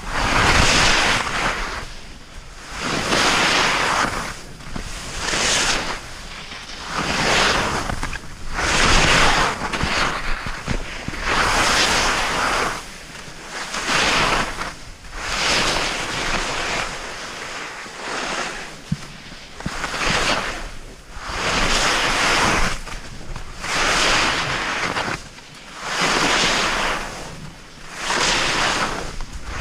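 Skis scraping and hissing over snow in quick rhythmic turns through moguls, with a surge of noise about every second or so, over wind on the microphone.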